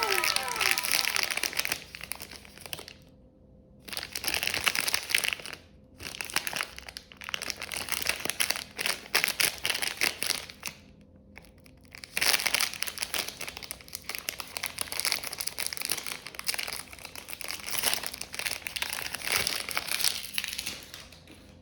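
Wood fire crackling: dense, irregular pops and snaps, broken by a few short, abrupt gaps.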